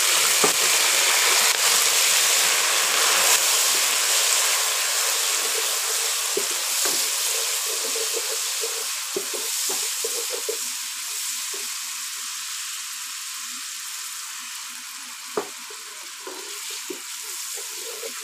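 Chicken stock sizzling in a pot of hot ghee and browned onions, stirred with a wooden spatula that knocks and scrapes against the pot. The sizzle is loud at first and dies down gradually as the liquid settles into the oil.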